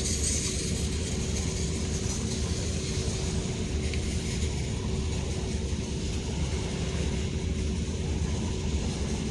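Ro-ro ferry's engine droning steadily, a deep rumble with a constant hum above it and a hiss of wind or water over it.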